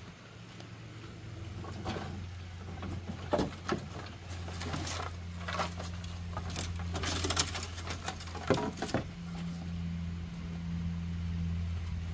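Lengths of dry bamboo knocking and clattering against each other as they are pulled out of a car's boot and gathered into an armful, with a run of sharp knocks between about two and nine seconds in. A steady low hum runs underneath.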